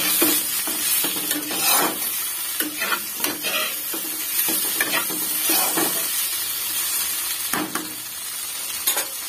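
Sliced potatoes, onion, tomato and drumstick pieces sizzling in hot oil in a pan while a metal spatula stirs and scrapes them, in many irregular strokes over a steady hiss.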